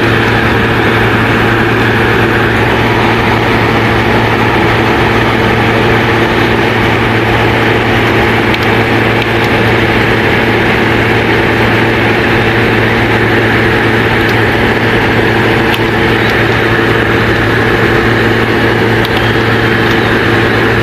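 Steady, loud hum made of several stacked tones with a hiss over it, unchanging.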